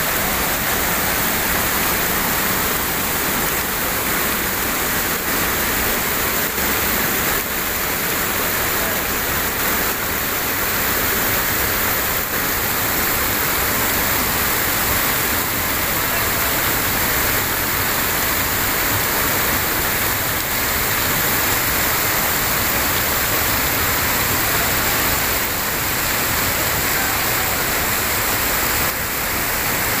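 Waterfall pouring into a rocky pool and splashing over stones: a steady, even rush of falling water.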